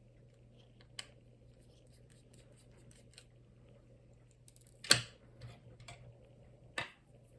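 Small metal tools clicking and tapping against the inside of an iPhone during a teardown, with a faint click about a second in and two loud sharp clicks about 5 and 7 seconds in, as a hidden screw is worked loose.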